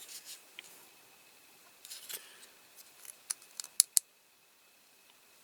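Light, sharp clicks and taps of small diecast toy parts being handled, with a quick run of sharper clicks about three to four seconds in.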